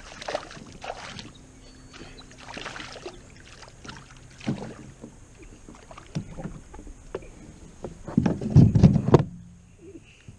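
Water splashing and knocks on a kayak while a hooked smallmouth bass is fought at the boat, with a louder burst of splashing about eight seconds in.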